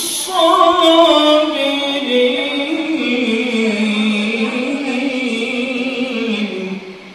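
A man's solo voice reciting the Quran in melodic tajweed style, holding one long ornamented phrase whose pitch winds slowly downward and breaks off shortly before the end.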